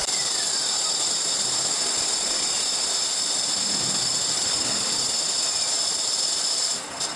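Metalworking machine running steadily: a loud, dense hiss with a steady high whine, which cuts off just before the end.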